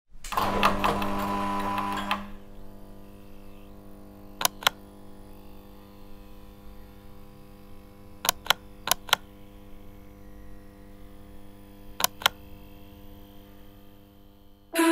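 A steady hum, louder for the first two seconds, with four pairs of sharp clicks, the two clicks of each pair about a fifth of a second apart.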